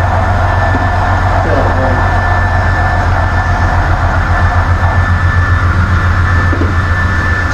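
Model freight train's flatcars rolling past on the layout track: a steady low rumble of wheels on rail, with a rapid rhythmic clatter in the middle, from the wheels passing over rail joints.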